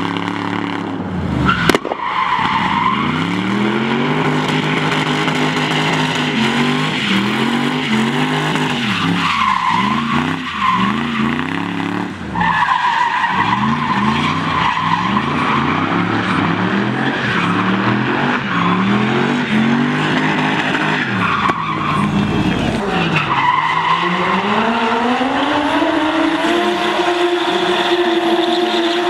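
Drift cars sliding sideways: engines rev up and fall back again and again as the throttle is worked, with tyres squealing under the wheelspin. There is a sharp crack about two seconds in. Near the end one engine climbs and holds at high revs.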